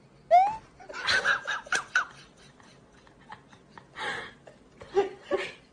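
A person laughing in quick bursts, loudest between about one and two seconds in and again near the end. A short rising glide sounds just after the start.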